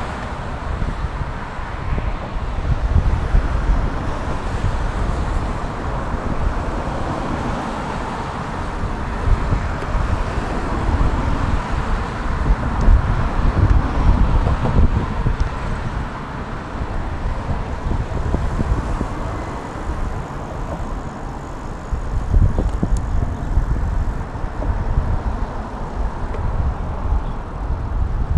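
Wind buffeting an action camera's microphone while riding, a heavy low rumble that swells and eases, over a steady hiss of road and tyre noise.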